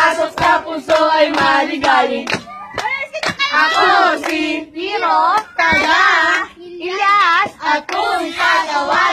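Sharp hand claps, many of them in quick runs, with several voices singing a wavering, sing-song chant over them: a hand-clapping game.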